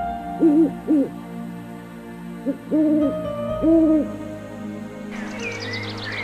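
Owl hooting: two short hoots near the start, then a brief one and two longer, drawn-out hoots in the middle, over soft background music. Near the end, bird chirps come in.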